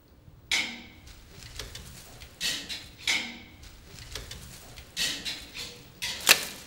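A series of about five sharp, hard clacks at uneven intervals, each dying away quickly. The loudest comes near the end.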